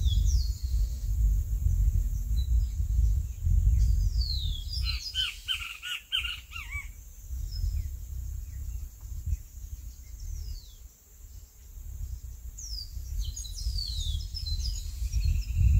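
Wild birds calling: several short falling whistles scattered through, and a quick run of repeated chirps about five seconds in. Under them, a gusty low rumble of wind on the microphone that eases off briefly twice.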